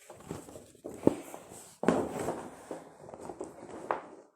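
Handling noises: a few sharp knocks and clicks with rustling between them, the loudest noisy burst about two seconds in.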